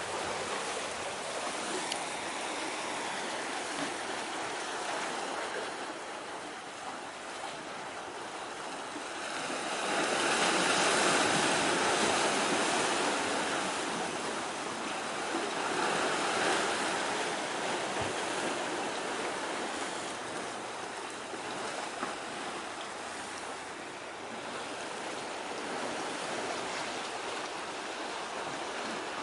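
Steady rushing noise of waves and wind at the shore, swelling louder about ten seconds in and again around sixteen seconds, with no engine tone to be heard.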